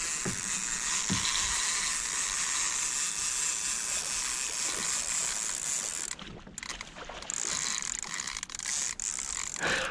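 Fishing reel cranked fast and steadily, its gears and clicker whirring as a hooked fish is reeled in; the cranking stops briefly about six seconds in, then resumes.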